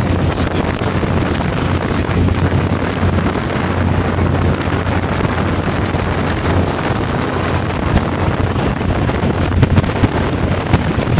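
Wind buffeting the microphone on a moving ferry, over a steady low drone from the ferry underway. There are a few sharper gusts in the second half.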